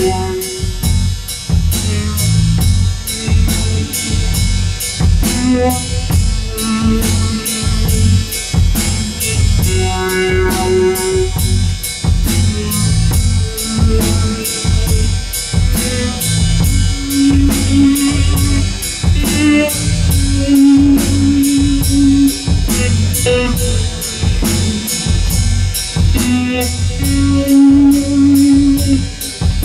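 Hard rock band playing live, an instrumental passage without vocals: a steady drum-kit beat with cymbals and bass drum under an electric guitar and bass, the melody moving in long held notes.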